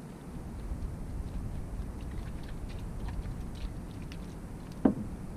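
Low rumble of wind buffeting the microphone, with scattered faint clicks. One short, sharp pitched call near the end is the loudest sound.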